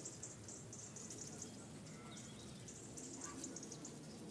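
Insects chirping in a high-pitched pulsing trill that repeats in short runs, over faint low background noise.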